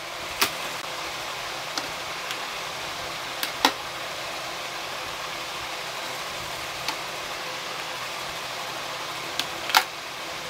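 Powder compacts being set into a vanity drawer: scattered short plastic clicks and taps, loudest about three and a half seconds in and again near the end, over a steady hiss.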